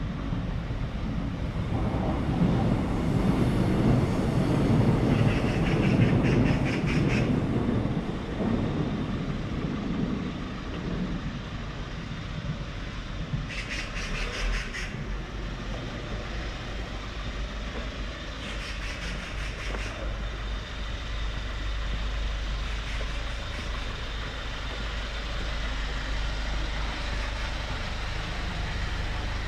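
City street traffic: a vehicle passes close by, its low rumble building and fading over several seconds, then a steady traffic hum with a few brief high rattles.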